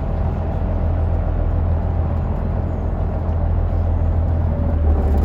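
Sightseeing houseboat's engine running steadily while the boat is under way, a low rumble mixed with a hiss of air and water, growing louder near the end.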